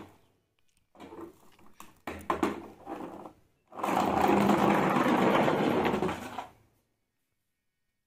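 Plastic toy police car handled and pushed back and forth, with scrapes and clicks, then rolling across a ridged sheet with a steady rattling whir for about three seconds before it stops.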